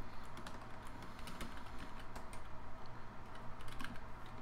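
Typing on a computer keyboard: a run of quick, irregular keystroke clicks.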